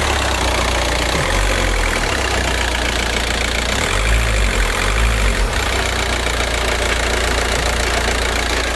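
Volkswagen Transporter engine idling close up with the clutch released, carrying the rasping 'şırr' noise that stops when the clutch pedal is pressed, which the mechanic takes for flywheel noise. The low engine note swells briefly about a second and a half in and again around four to five seconds in.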